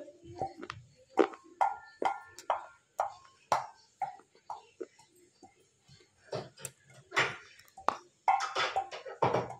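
Baked clay roll, lightly smoked, being bitten and crunched between the teeth: a series of sharp crisp cracks roughly twice a second, turning into a denser crackling crunch near the end.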